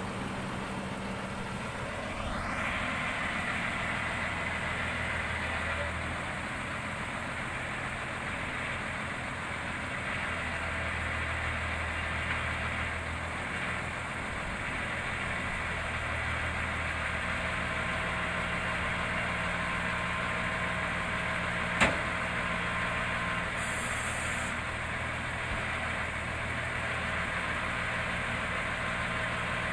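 Heavy diesel engine of a crane lorry running steadily, its speed stepping up and down every few seconds as the crane works. A single sharp knock comes about two-thirds of the way through, followed shortly by a brief hiss.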